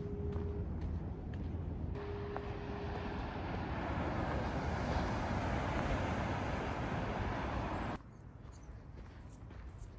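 Ocean surf breaking on the beach below, a steady rush of waves that swells for a few seconds and then cuts off abruptly near the end, leaving quieter footsteps on a dirt trail. A single steady tone sounds twice in the first three seconds.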